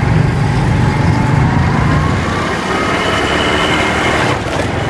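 Motorcycle engine running steadily at low speed, its pitch rising slightly partway through as it picks up a little speed.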